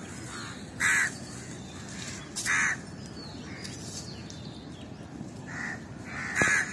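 Crows cawing: several separate short, harsh caws spaced a second or more apart, over a steady outdoor background hiss.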